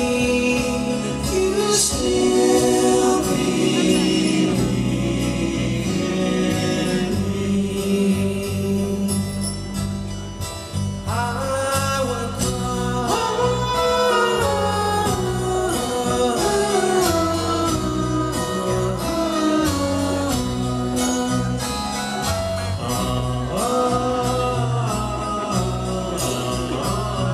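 A live band, with piano, drums, bass and guitars, playing a slow pop song with lead and layered harmony vocals, recorded from far back in the audience. A higher group of voices comes in about eleven seconds in.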